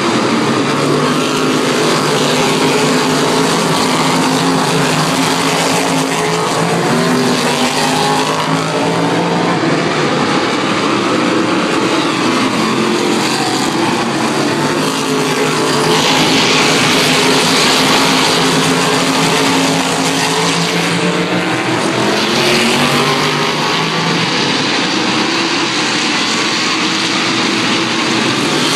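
A pack of race cars running laps on a short oval track, the overlapping engine notes rising and falling as the cars go through the turns and pass by. The sound grows a little louder and hissier about sixteen seconds in.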